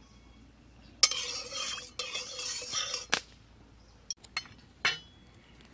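Ingredients tipped from a bowl into hot mustard oil in an iron kadai: a sudden burst of hissing and spluttering about a second in, lasting about two seconds, then a few sharp clinks of the bowl against the pan.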